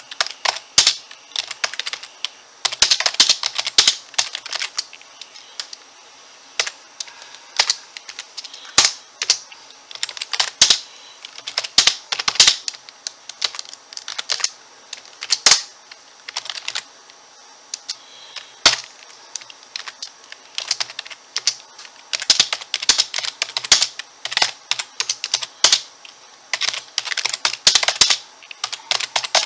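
Keys of an RGB-backlit Corsair computer keyboard clicking under fast typing, in quick flurries of keystrokes broken by short pauses.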